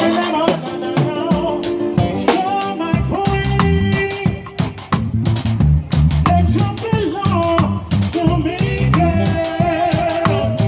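Live band playing an upbeat ska-style tune: drum kit strokes under sustained melody notes, with a heavy bass line coming in about three seconds in.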